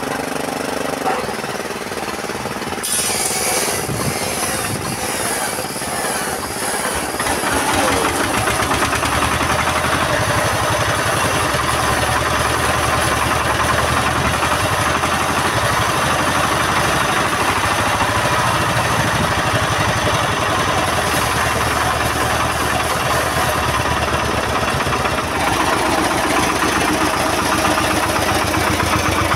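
Yanmar TS190R single-cylinder diesel engine coming up to speed about seven seconds in, then running steadily with an even chug.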